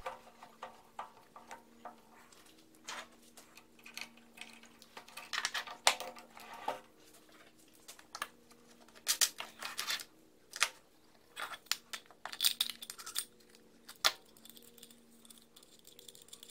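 Scattered small clicks, clinks and taps of hand work at a drill press: a threaded insert is screwed into a wood block by turning the spindle by hand, and metal tools and the block are handled and set down. A faint steady hum runs beneath.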